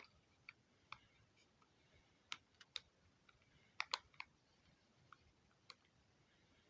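Faint, scattered small clicks and taps of small plastic toy parts being handled, with a sharper double click about four seconds in.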